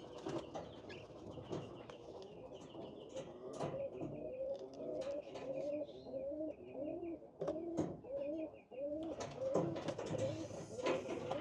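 Several domestic pigeons cooing in their cages, low, repeated rising-and-falling calls overlapping one another, with scattered sharp knocks and taps from the cages.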